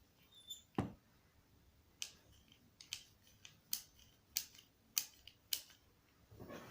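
Ratchet cable cutter being worked by hand: a single knock near the start, then six sharp ratchet clicks, one with each stroke of the handles, coming a little faster toward the end.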